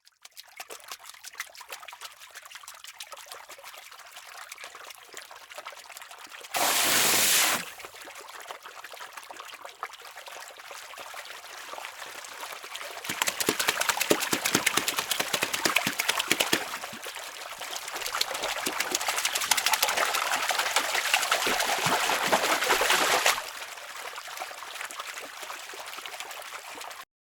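Water trickling and splashing with a dense crackle. A brief loud rush comes about seven seconds in, and the flow grows louder through the middle stretch before easing off.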